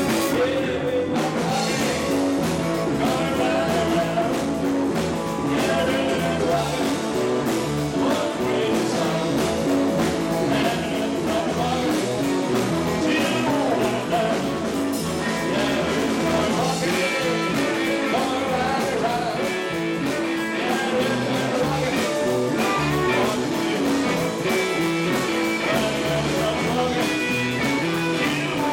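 Live rock and roll band playing at a steady beat: electric guitars, bass guitar and drums.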